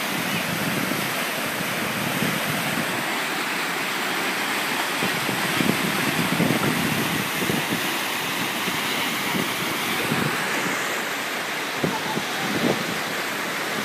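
Whitewater river rapids rushing steadily. A few low buffets on the microphone come about halfway through and again near the end.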